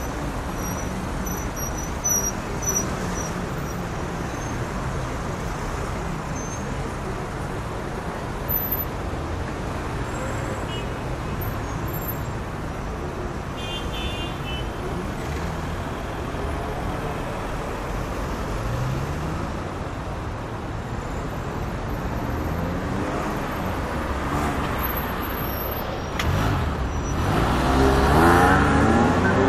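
Heavy city street traffic: a steady wash of car engines and tyre noise. Near the end a vehicle accelerates close by, its engine rising in pitch and becoming the loudest sound.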